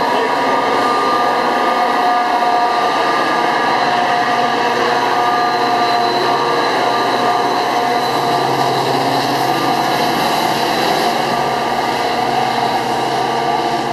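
Metra EMD F40PH diesel locomotive's engine running steadily, a loud drone with several high, steady whining tones.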